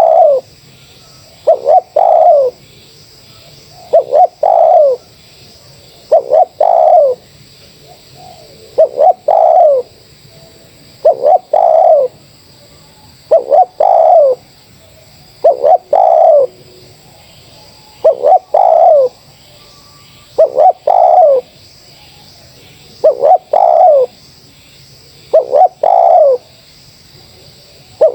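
Spotted dove (terkukur) cooing: a short phrase of a few quick notes ending in a longer coo, repeated regularly about every two and a half seconds, a dozen times over.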